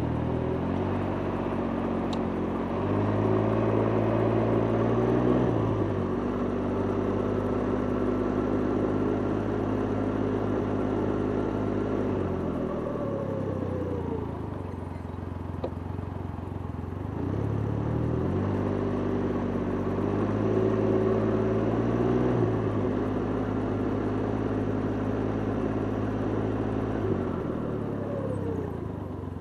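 Can-Am Ryker three-wheeled motorcycle engine running under way. It speeds up, holds steady, then eases off to a slower pace, and goes through this twice.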